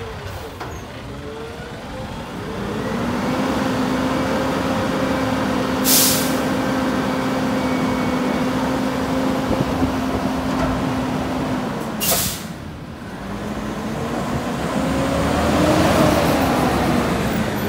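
Natural-gas Mack LR front-loader garbage truck: the engine revs up and holds steady to drive the hydraulics while the forks lift and dump the carry can. Two short air hisses come about 6 s and 12 s in. The engine then rises and falls as the truck pulls away.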